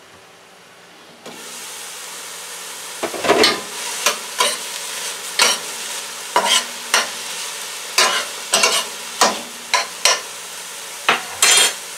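Vegetables frying in a stainless-steel skillet, the sizzle growing louder about a second in as the glass lid comes off. A metal utensil then clatters and scrapes against the pan again and again as the vegetables are stirred.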